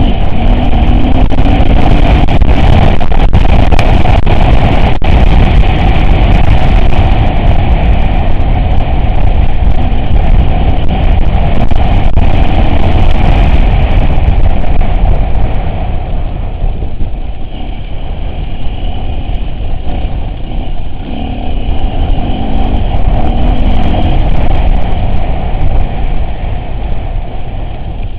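Off-road vehicle's engine running loudly on the move, with sharp knocks and clatter through the first half; it gets somewhat quieter about halfway through.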